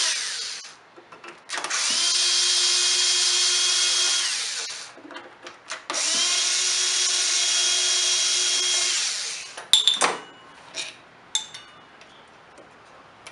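Cordless electric screwdriver backing out screws on a two-stroke backpack blower's air filter base and carburetor. It runs in three bursts: one ends just under a second in, then two more of about three seconds each, the motor winding up and spinning down each time. A few sharp clicks follow near the end as parts are handled.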